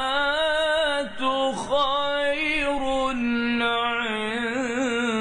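A male reciter chanting the Quran in a slow melodic style, one voice drawing out long held notes with wavering ornaments and a brief break a little over a second in.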